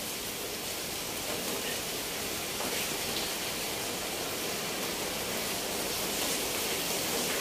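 Steady rain falling on corrugated roof sheeting and tree leaves: an even hiss with faint scattered drop taps.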